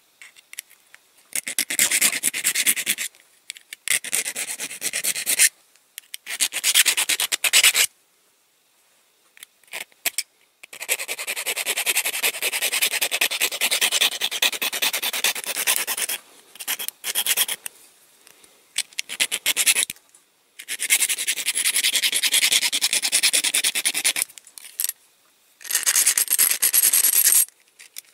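A small hand file rasping back and forth across the mushroomed end of a die-cast toy's metal axle, to file off the axle head so the wheel can come off. The filing comes in spells of one to five seconds with short pauses, the longest spell about five seconds.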